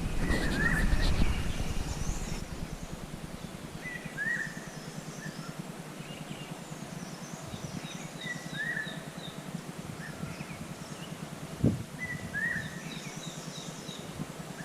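Wild songbirds calling. One bird repeats a short call about every four seconds, and another gives quick runs of high, thin notes. There is a rustling burst in the first two seconds and a single thump about twelve seconds in.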